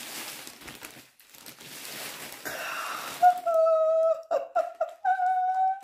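Clear plastic wrapping crinkling as a handbag is pulled out of it. Then, about three seconds in, a woman's high-pitched squeal of delight, held in several long notes with short breaks.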